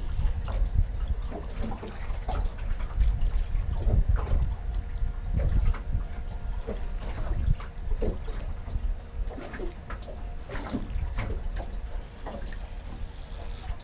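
Small waves lapping and splashing irregularly against the hull of a drifting boat, over a steady low rumble.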